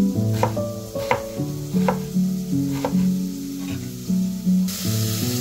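Chef's knife chopping an onion on a wooden cutting board: about five sharp knocks over background music. Near the end a steady sizzle starts: diced bacon and onion frying in a pot.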